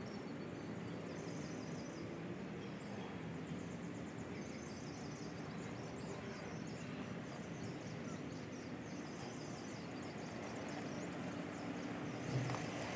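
Birds chirping in short repeated trills every few seconds over steady outdoor background noise.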